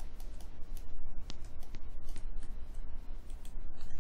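Computer mouse clicking and scroll-wheel ticking, many quick irregular clicks a second, over a steady low hum.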